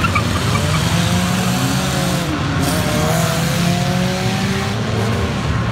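A field of enduro stock cars running together around an oval track, many engines droning at once, their pitches rising and falling as cars accelerate and pass.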